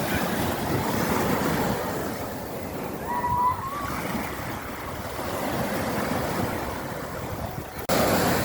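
Sea waves breaking and washing on the shore, a steady surf, with a short thin whistle-like tone about three seconds in. Near the end the sound breaks off abruptly and comes back louder.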